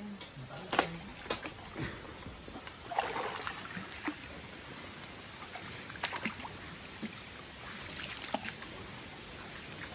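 Shallow river water trickling, with scattered small splashes and clicks.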